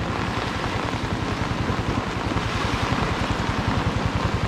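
Swollen, muddy flash-flood river rushing under a bridge: a steady roar of fast water, with rain and a low rumble of wind on the microphone.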